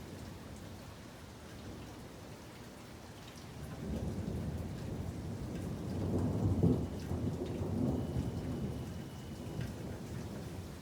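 Thunder rolling over steady rain: a low rumble builds about four seconds in, peaks a couple of seconds later and slowly dies away, with rain pattering throughout.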